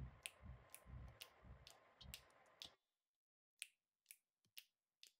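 The mysterious ticking noise: sharp, steady ticks about two a second, with soft low thumps between them until a little past halfway, then the ticks alone.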